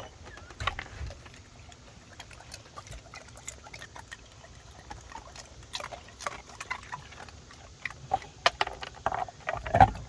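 A dog dunking its muzzle into a bowl of water for ice cubes: scattered light splashes and clicks, with a few louder ones near the end.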